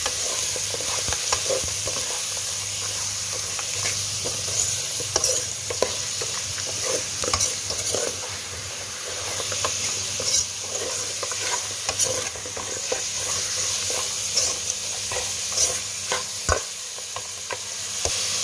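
Pork bones and garlic sizzling in oil in a metal pot while a metal ladle stirs them, its scrapes and knocks on the pot clicking irregularly over the steady hiss.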